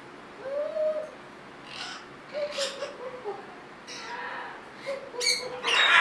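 Hyacinth macaw making a run of short, low-pitched calls, one rising and falling, mixed with soft raspy chatter, with a louder rough call near the end. These are the playful sounds of a happy macaw.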